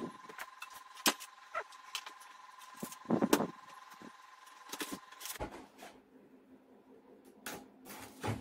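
Clicks, taps and light metal clatter from handling a computer power supply's sheet-steel case by hand, with a louder knocking cluster about three seconds in. About five seconds in a faint steady high whine stops and a faint low hum starts.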